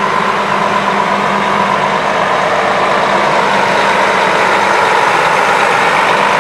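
New Flyer Viking coach's engine idling steadily: a constant low hum with a steady higher whine over it.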